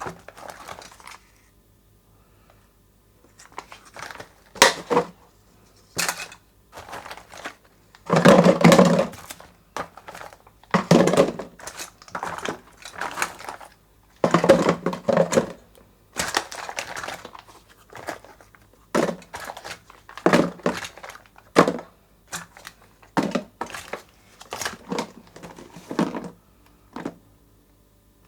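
Plastic candy and chocolate wrappers crinkling and rustling in irregular bursts, with sharp crackles and short gaps, as they are handled and torn open.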